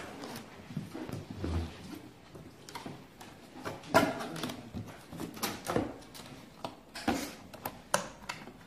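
Cardboard box and lid being handled and closed: rustling and scraping of cardboard with a series of sharp knocks and taps, the loudest about four seconds in as the lid comes down onto the box.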